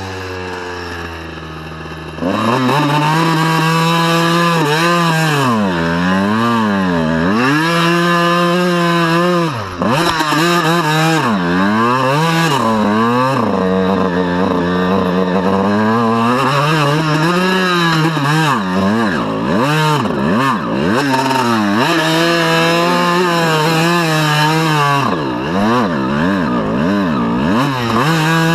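Honda CR125 dirt bike's 125cc two-stroke single-cylinder engine being ridden, its revs rising and falling over and over as the throttle is worked. It falls to a low, quieter note at the start and picks up sharply about two seconds in.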